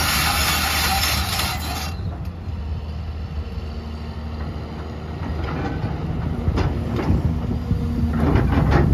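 XCMG XE265CT crawler excavator's diesel engine running steadily, with a loud hissing rush for the first two seconds that cuts off suddenly. Metallic knocks and clanks of the machine at work build up over the last few seconds.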